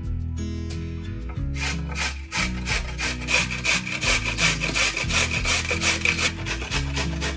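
Rapid, even rasping strokes, about five a second, of food being rubbed across a grater, starting about a second and a half in.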